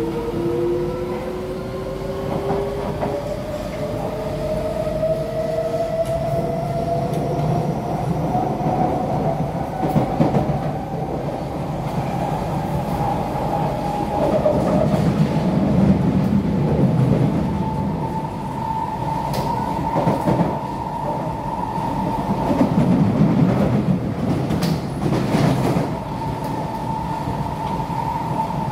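Kawasaki–CRRC Sifang C151C metro train heard from inside the car as it accelerates away from a station: the traction motor whine climbs steadily in pitch for about the first fifteen seconds, then holds level at running speed. Wheel-on-rail rumble swells twice, with a few sharp clicks and knocks from the track.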